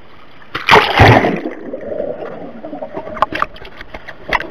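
Swimming-pool water splashing hard about a second in, then sloshing and gurgling around a camera held at the water's surface, with small splashes and drips.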